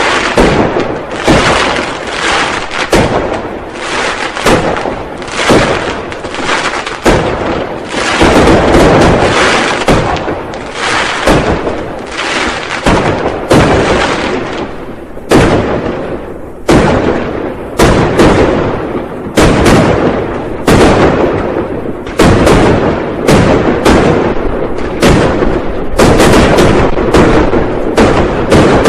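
Firecrackers and fireworks exploding in a dense, continuous barrage of loud bangs and crackles, often one to two sharp reports a second with echoing tails.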